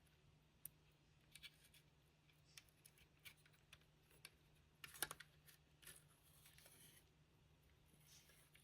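Near silence with faint, scattered small clicks and scrapes of small model-train parts and a screw being handled and tried for fit, the loudest a single click about five seconds in.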